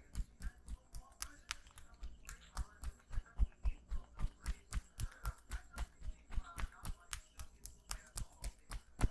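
A barber's hands rapidly tapping and slapping during a head massage, a steady run of sharp percussive strikes at about four to five a second.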